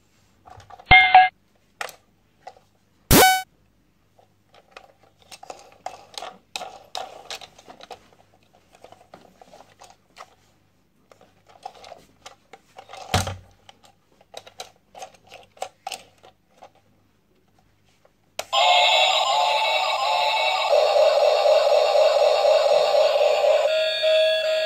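Plastic toy train being handled, with scattered plastic clicks and rattles, a short electronic beep about a second in and a sharp click shortly after. About three quarters of the way in, the battery-operated toy train's electronic tune starts playing loudly and keeps going.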